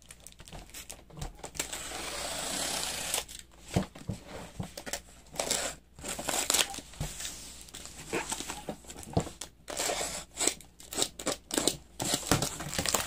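Packing tape being peeled and torn off a cardboard shipping box, with the cardboard scraping and rustling under the hands. A long pull about two seconds in, then short, irregular rips and scrapes.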